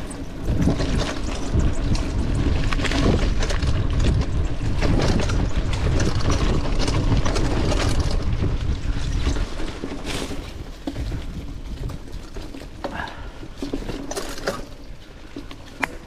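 Mountain bike ridden down a dirt trail: wind rushing over the microphone and tyres running over the ground, with many small knocks and rattles from the bike over bumps. The rush is heavy for about the first ten seconds, then drops away as the knocks go on.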